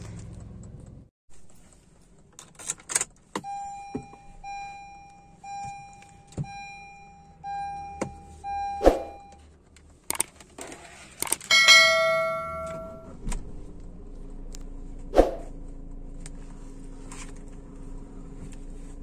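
Honda Amaze heard through a microphone taped near the front tyre. An electronic chime beeps about once a second, six times, among scattered clicks. About twelve seconds in a louder clatter comes with a brighter bell-like chime, and then the car runs with a low steady hum and no rhythmic knocking.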